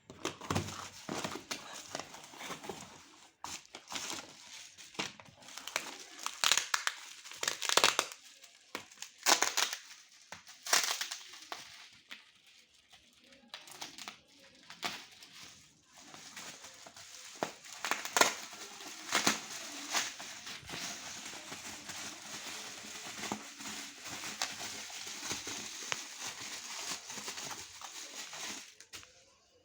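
Packaging being handled and opened: crinkling and rustling with many sharp crackles, loudest about a third of the way in, settling into steadier rustling toward the end.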